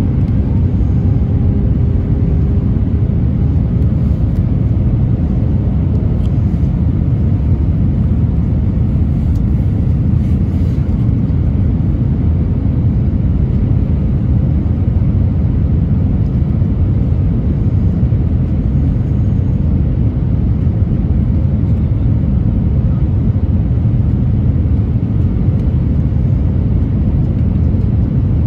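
Steady low rumble inside the cabin of an easyJet Airbus A320-family airliner on approach, from the jet engines and the airflow past the fuselage, heard from a window seat over the wing.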